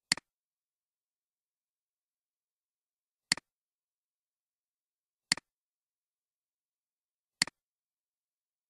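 Computer mouse button clicking four times, a few seconds apart, each click a sharp press followed at once by a softer release, with dead silence between.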